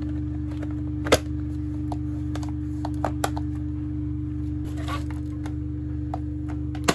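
Sharp plastic clicks and knocks as the handle of a Black & Decker PSA215 floor sweeper is pushed into its sockets on the sweeper body. The loudest click comes about a second in and another just before the end, all over a steady low hum.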